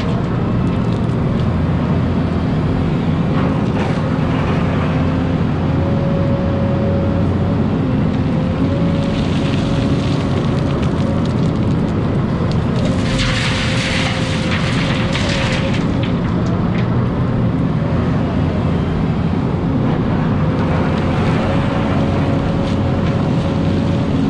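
Hidromek hydraulic excavator working, heard from the cab: the engine runs steadily under load with a wavering hydraulic whine as the boom and bucket swing and dig. Two spells of hissing noise come in the middle.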